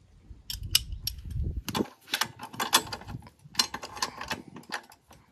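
Ratchet wrench clicking in quick irregular runs as the bolts of a motorcycle crash guard are tightened down.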